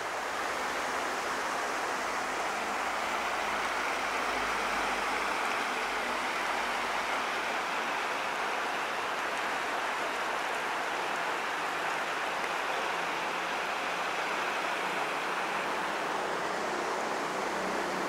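Mountain stream flowing over rocks, a steady rushing of water.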